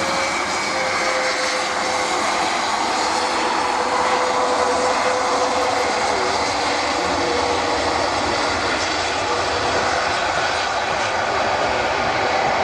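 The four Europrop TP400-D6 turboprop engines and propellers of an Airbus A400M running as it rolls along the runway: a loud, steady drone with a whine that drifts slightly lower in pitch.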